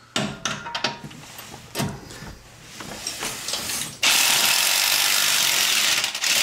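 Impact wrench running a suspension bolt out below a Jeep Wrangler JK's rear axle. A few clicks and taps come as the socket is fitted, then about four seconds in the wrench starts and runs steadily, with a short break near the end.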